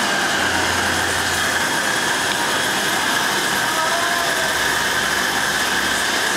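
A glassblower's gas torch burning with a steady, even rushing noise as its flame heats a gather of glass on a blowpipe.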